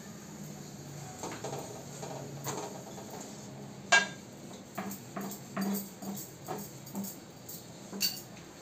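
Kitchen utensils and cookware knocking and clinking as flatbreads are handled on a tava over a gas stove, with a sharp metallic clack about four seconds in the loudest and another near the end, over a faint steady hum.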